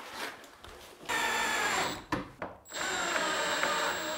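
Milwaukee M12 installation driver driving screws, with a clutch set to snug the fastener without over-tightening. It runs in two steady whining bursts, the first about a second long and the second about a second and a half, with the pitch dipping slightly under load.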